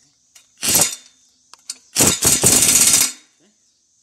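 Power wrench running bolts down in two bursts: a short one under a second in and a longer one of about a second near the middle. The bolts are being snugged enough to hold, not fully torqued.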